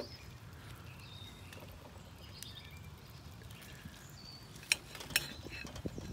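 Quiet outdoor ambience: a steady low rumble with a few short bird chirps, and two sharp clicks about three-quarters of the way through as a knife and fork strike the plate while cutting into a grilled bratwurst.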